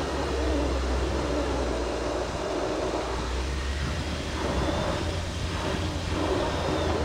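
Jeep Wrangler JL driving on an off-road trail: a steady low engine drone under an even, rough noise.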